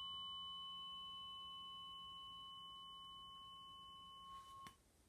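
Tuning fork ringing after a strike, a clear steady high tone slowly fading, then cut off abruptly about four and a half seconds in as the fork is stopped.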